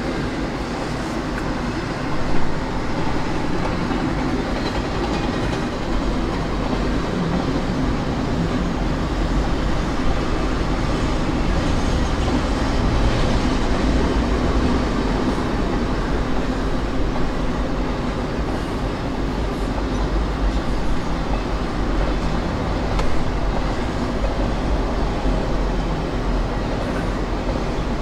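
CSX freight train rolling past on elevated track: a steady, unbroken noise of railcar wheels on the rails.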